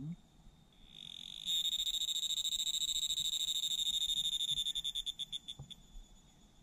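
A cicada singing: a shrill, rapidly pulsing buzz that swells in about a second in and holds loud for about four seconds, then slows into separate pulses and stops near the end.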